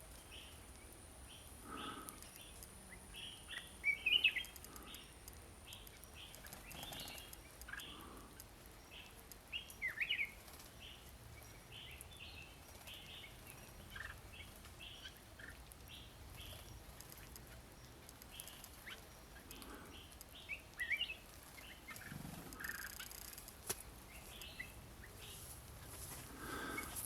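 Several birds calling at once: a continual patter of short chirps and chip notes, several a second, with a few louder sweeping calls and some lower notes mixed in.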